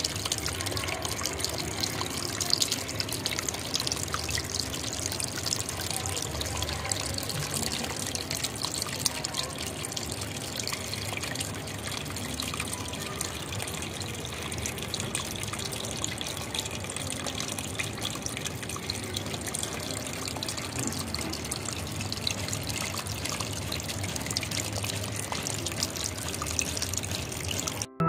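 Small homemade clay-pot fountain running: water pouring from a tilted clay pot onto pebbles in a clay bowl, trickling steadily.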